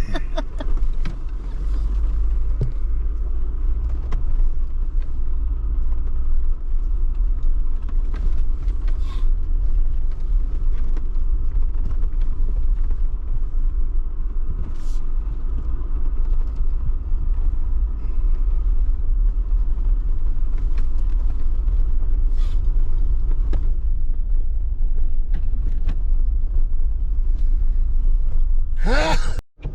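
Interior noise of a vehicle driving slowly over a rough dirt lease road: a steady low rumble from engine and tyres, with scattered creaks and light knocks from the body and suspension.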